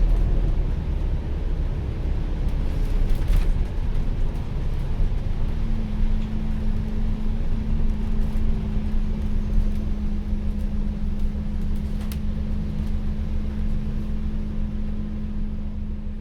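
Interior of an ADL Enviro400H City hybrid double-decker bus on the move: a low rumble, joined about five seconds in by a steady hum that gives this bus its 'Hoover' sound, with a couple of sharp rattles.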